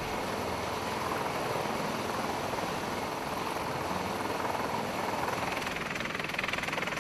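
Helicopter turbine engines and rotor running steadily. About six seconds in, the sound shifts higher and takes on a fast pulsing.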